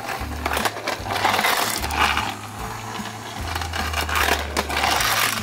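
Battery-powered Thomas & Friends TrackMaster toy engine running on plastic track, its small motor whirring with plastic rattling that swells and fades several times. Background music plays underneath.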